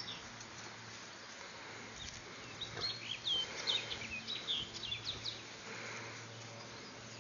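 Small birds chirping: a quick run of short, high, sweeping notes, most of them about three to five seconds in, over faint background noise.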